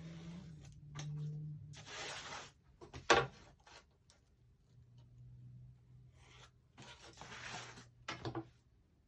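A pen drawing lines on cardboard: two long scratchy strokes, about two and seven seconds in, with a sharp tap just after three seconds and a few lighter ticks near the end.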